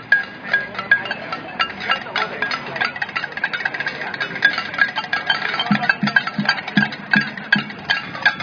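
Protest noisemakers: metal being struck in a steady beat, about three sharp clanks a second, with deeper thuds joining in for a couple of seconds past the middle.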